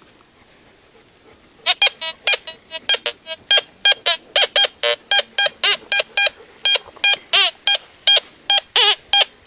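Teknetics G2 metal detector beeping as a small gold coin is passed over its search coil, with iron discriminated out: a quick string of short pitched beeps, about four a second, some wavering in pitch, starting about two seconds in. The repeated beeps are the detector signalling a non-iron target.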